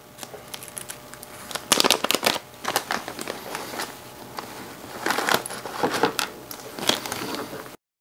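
A small plastic zip-lock bag crinkling and rustling as kit parts are taken out and handled on a cutting mat, with irregular light clicks and taps.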